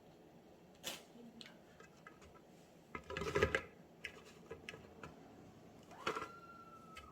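Light clicks and knocks of kitchen items being handled, with a short clatter about three seconds in and a click near the end that leaves a brief ringing tone.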